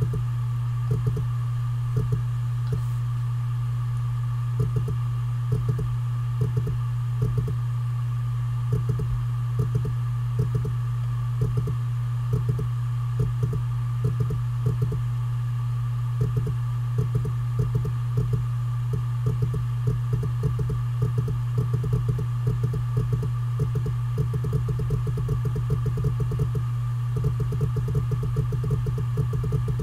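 Seagate Barracuda 7200.12 (ST31000528AS) 1 TB hard drive spinning at 7,200 RPM with a steady low hum and a fainter high whine, its heads seeking in quick irregular clicks that come thicker near the end. The drive is failing, with thousands of reallocated sectors.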